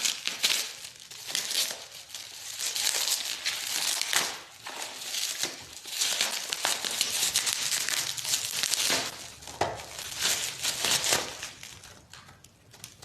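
Plastic packaging crinkling and rustling as a spool of fishing line is unwrapped and handled, in irregular stretches with short pauses.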